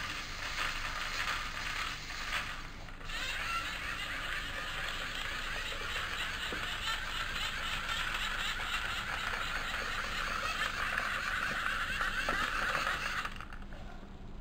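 Lego NXT servo motors and plastic gears whirring with a rapid rattle as the robot blender runs its program. The sound dips briefly about three seconds in, runs on strongly, then stops abruptly about a second before the end.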